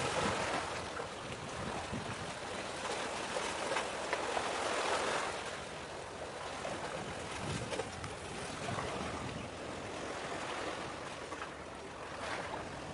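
Sea waves washing and wind on the microphone: a steady rushing hiss that eases a little about five seconds in.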